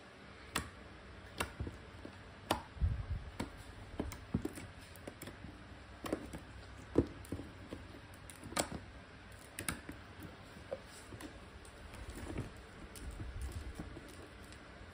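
Galaxy slime being kneaded, pressed flat and stretched by hand on a tabletop, giving irregular small clicks and pops, with a few soft low bumps of handling.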